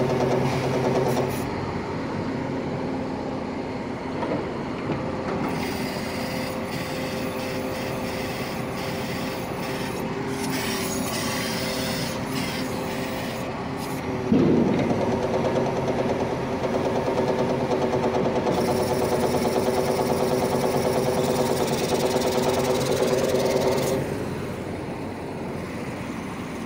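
Atlas 330.1 crane's hydraulic system running as its control levers are worked: a steady machine hum with several held tones, getting louder about 14 seconds in and easing off near the end. The abnormal metallic sound is one the mechanic traces to the piston-type hydraulic pump, whose pistons have damaged or missing piston rings.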